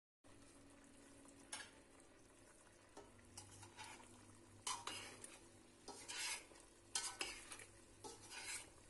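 Metal spoon stirring unripe green figs in hot sugar syrup in a stainless steel pot: a run of short, quiet scrapes and clinks against the pot, over a faint steady hum.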